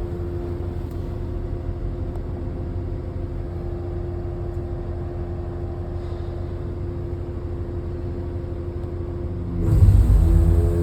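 Heavy diesel engine of a large mobile crane running steadily with a low hum. About ten seconds in it surges louder, as if revved.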